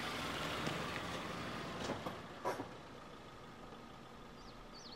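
Radio-drama sound effect of a car driving: its engine and road noise swell and then fade away after about two seconds, with a couple of short clicks. Birds start chirping near the end.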